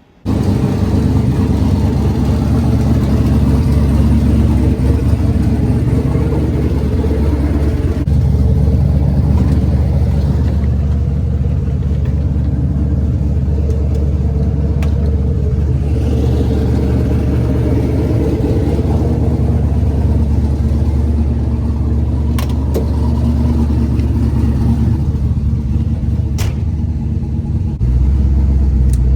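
Engine of a twin-turbocharged 1979 Ford Fairmont drag car running loudly and steadily, stepping up a little in level near the end.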